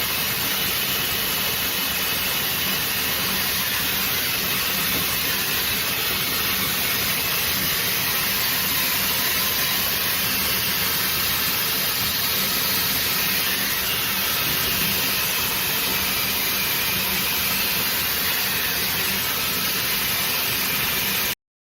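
Shark FlexStyle hair dryer running, a steady rush of blown air with a faint motor hum, until it cuts off abruptly near the end.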